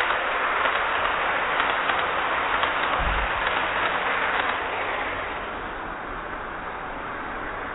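N gauge model train running on the layout track: a steady whir and rattle of its wheels on the rails with faint light clicks, fading noticeably about five seconds in as it moves away. A brief low thump about three seconds in.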